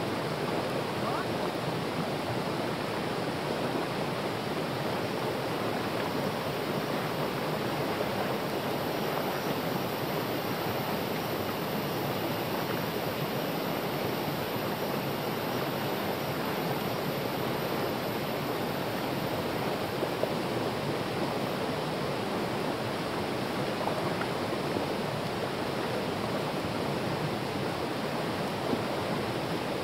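Steady rush of a small forest stream running and splashing down over a rock slab.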